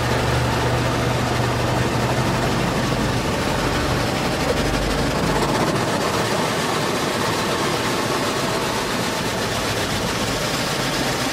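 Automatic car wash running around the car, heard from inside the closed cabin: a steady loud rushing, with a low hum that fades out about four seconds in.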